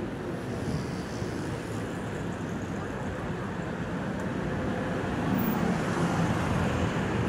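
Steady city traffic noise with a tram approaching along the street track, the sound swelling somewhat over the last few seconds as it nears.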